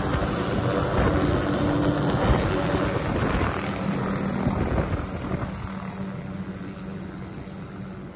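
MD 500 light turbine helicopter lifting off and climbing away, with rotor chop and turbine noise carrying a steady tone. It fades steadily from about five seconds in as the helicopter flies off.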